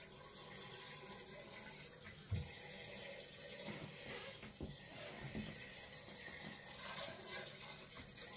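Kitchen faucet running a steady stream of water into a pot of chitterlings to cover them before cooking, with a single short knock a little over two seconds in.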